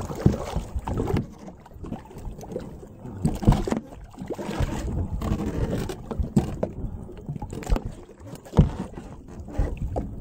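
Wind and water sloshing against a boat hull, broken by a few sharp knocks and thumps, about three of them standing out.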